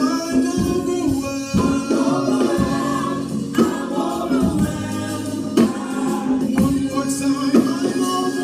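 Live gospel worship music: a group of singers holding sustained notes over a band, with a steady beat of drum hits.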